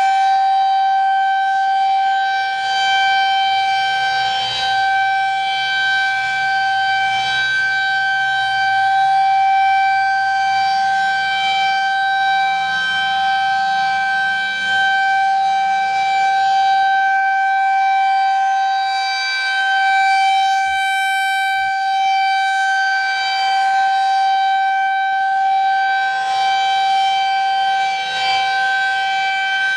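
Federal Signal 2001-SRN outdoor warning siren sounding a steady alert tone during a monthly test: one loud unwavering pitch with strong overtones, swelling and easing slightly in loudness.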